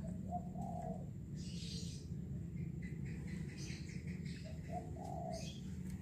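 A dove cooing twice, each a short note followed by a longer one, about four seconds apart, with high thin bird chirps in between over a steady low background rumble.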